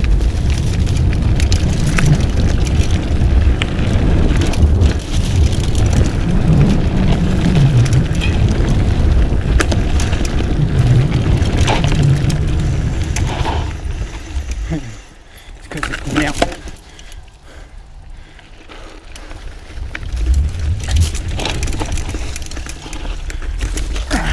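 Mountain bike ridden over a dirt forest trail: tyre rumble with wind buffeting the microphone and frequent rattles and knocks from the bike over the bumps. It goes quieter for several seconds a little past the middle, then picks up again near the end.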